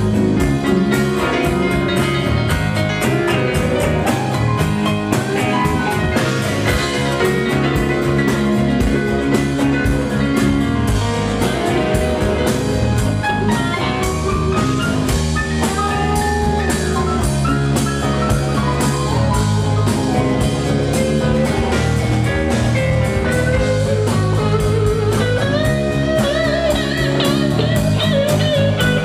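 Live blues band playing an instrumental passage: drum kit keeping a steady beat under bass, acoustic and electric guitars, with a lead line of bending notes over the top.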